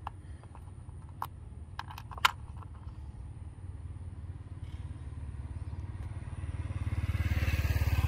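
A few sharp plastic clicks as a blade fuse is pulled from a car's engine-bay fuse box with a plastic fuse puller, over a low engine rumble that grows louder over the last few seconds.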